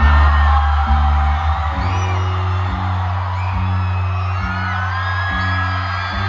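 Rock band playing live in a stadium: a loud held low bass note gives way about two seconds in to a pulsing pattern of low notes, while the crowd screams and whoops over it.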